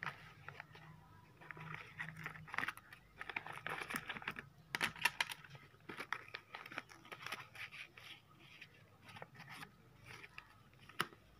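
Folded paper box being handled, its flaps pressed and opened: paper rustling and crinkling with irregular light clicks and taps.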